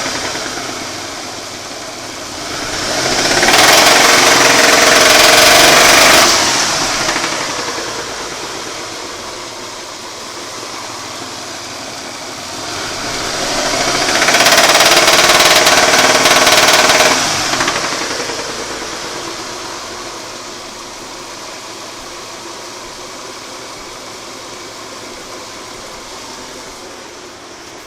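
Mitsubishi Galant's 6A13 2.5-litre V6 running with a knock, revved up twice and held for about three seconds each time before dropping back to idle. The owner puts the knock and stumbling down to a spun bearing shell.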